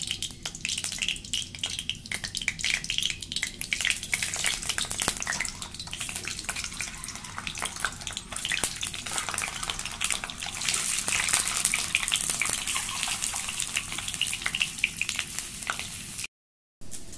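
Hot mustard oil crackling and sizzling in an iron kadai as peeled boiled eggs are put in to fry. The sizzle grows louder and denser about ten seconds in, and the sound cuts out briefly near the end.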